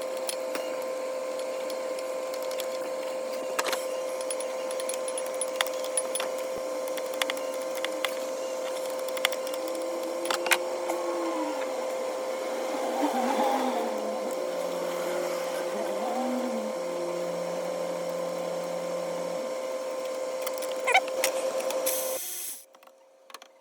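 Scattered metallic clicks and taps of hand tools working on the AC compressor's line fittings and bolts, over a steady electric hum. The hum cuts off near the end.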